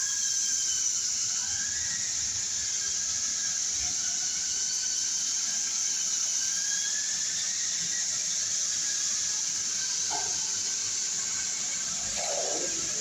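Rotary heat-transfer calender machine running: a steady high hiss with faint, slowly wavering squealing tones over it.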